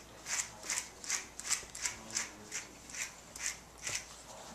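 A handheld grooming brush raking in quick, even strokes through a long-haired dog's dry coat, worked with cleaning powder, about two strokes a second; the strokes stop near the end.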